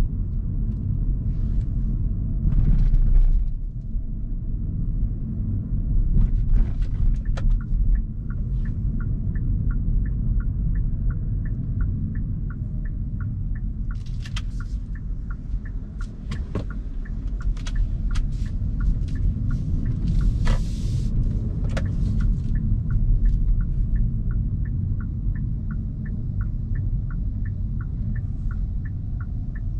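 Steady road and tyre rumble heard inside a Hyundai Kona Hybrid's cabin while driving, with a few brief hissy swells. From about eight seconds in, a regular ticking at about two a second, the turn-signal indicator.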